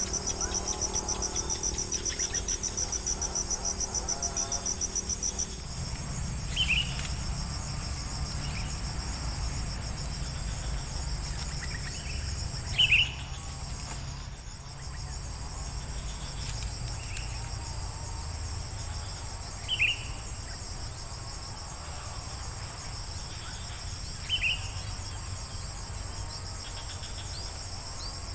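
Steady high-pitched insect trill, like crickets, with short falling bird chirps every few seconds over a low rumble.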